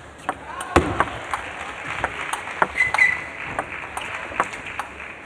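Table tennis rally: the ball clicking back and forth off bats and table, a few hits a second, with one louder knock just under a second in, over a low hall murmur.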